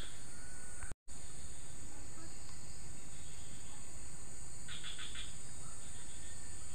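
Steady high-pitched chorus of insects over a low, even background rush, with a short run of rapid chirps about five seconds in. The sound cuts out completely for an instant about a second in.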